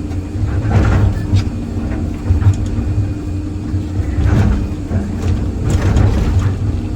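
Excavator engine running steadily, with several sharp knocks and scrapes as the bucket works against broken concrete.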